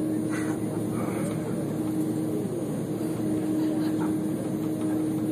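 Steady hum and rumble of an airliner with its engines running before takeoff, with a constant droning tone that dips and glides back about halfway through.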